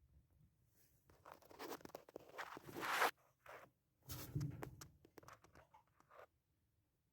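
Scraping and rustling of dryer parts being handled, in two bursts of about two seconds each.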